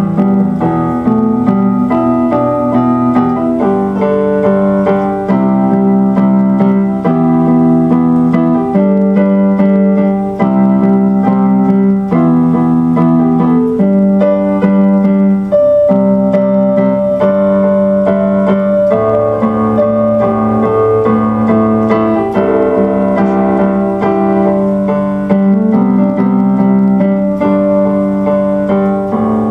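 Background piano music, steady chords changing about once a second.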